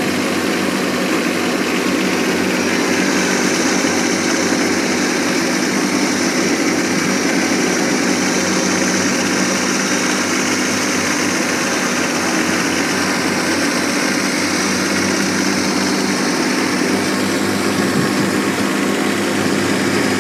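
Kubota B1600 compact tractor's diesel engine running at a steady speed while mowing grass, heard from the driver's seat.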